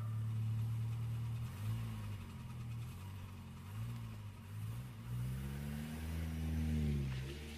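Low synth bass notes, held and sliding up and down in pitch with no drums, fading near the end: the outro of a hip-hop backing track.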